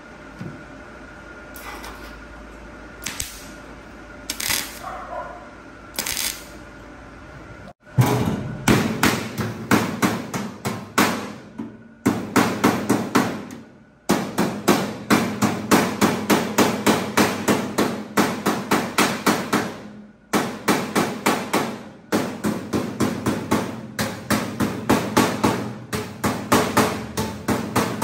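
Hammer blows on metal during frame building. A few separate strikes come first, then from about eight seconds in a steady run of hammering at about two to three blows a second, broken by a few short pauses, each blow ringing briefly.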